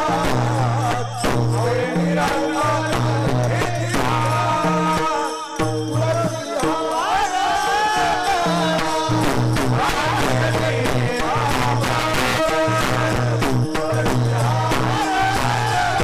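Marathi devotional kirtan music: a voice singing a wavering melody over steady low instrumental tones, with repeated jingling hand percussion keeping the beat.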